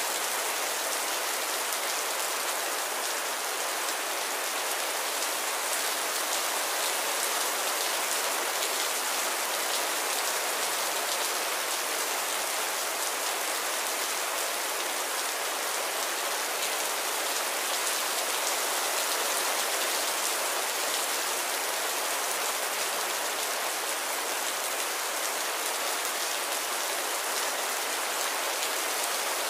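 Heavy rain falling in a steady, even hiss that doesn't let up.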